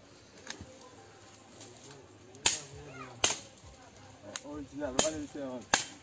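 Dry dead wood being broken up for firewood: four sharp cracks in two pairs, the first pair about halfway through and the second near the end.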